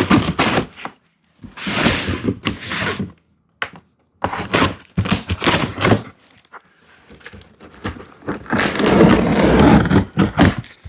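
A cardboard shipping box being opened and handled by hand: flaps and packing scraping, rustling and knocking. Near the end comes a longer stretch of continuous scraping.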